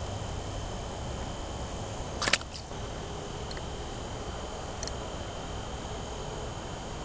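A single sharp snap about two seconds in, followed by a couple of faint ticks, over a steady hiss.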